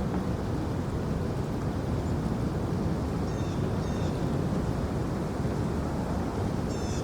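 Steady low rumbling outdoor noise, with two pairs of short high chirps: one pair about halfway through and another near the end.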